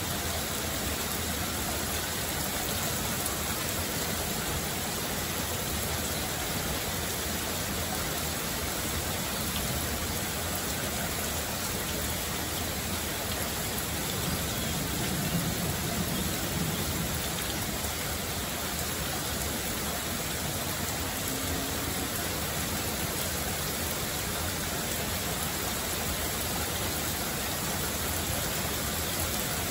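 Heavy rain falling: a steady, even hiss of a downpour that does not let up.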